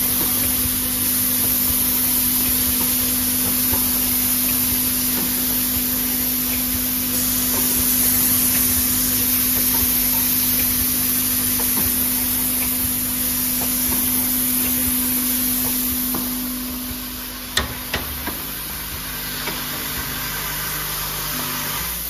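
Automatic flat-bottle filling, plugging and capping machine running: a steady mechanical hum with a constant low tone, and a couple of sharp clicks near the end.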